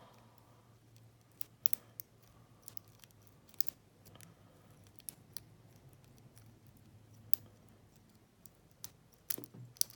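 Light, scattered clicks of a lock pick and tension wrench working the pins inside a 25 mm brass Lane padlock, with a quick run of louder clicks near the end.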